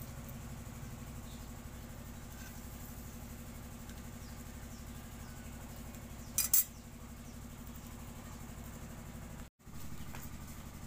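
A steady low mechanical hum like an engine idling nearby, with a brief, sharp metallic scrape or clink a little after halfway.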